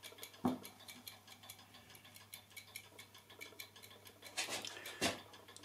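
Restored clock with a hairspring and balance wheel ticking rapidly and a little unevenly, the tick heavier on one side than the other: a sign that it is out of beat or that too little power is getting through the train. A couple of louder knocks stand out, about half a second in and near the end.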